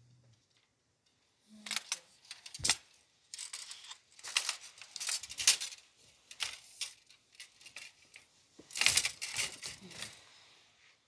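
Cloth rustling as a garment is handled close to the microphone, with scattered clicks and one sharp knock about two and a half seconds in.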